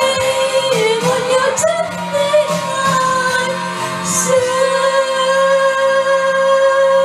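Cantonese pop ballad: a singer's wordless, gliding vocal over sustained instrumental backing. About four seconds in, the voice settles into one long held note.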